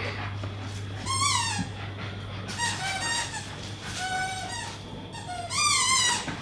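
High-pitched squeals from Staffordshire bull terriers at play among squeaky toys, coming in four short runs, most sliding down in pitch. A steady low hum runs underneath.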